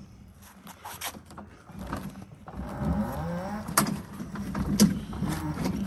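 Electric motor of a powered hand-truck dolly whirring as it drives, its pitch shifting, starting about halfway in, with two sharp clicks about a second apart.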